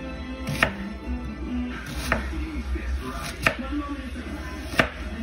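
Kitchen knife slicing a red onion on a bamboo cutting board: four sharp knocks of the blade meeting the wood, evenly spaced about a second and a half apart, over background music.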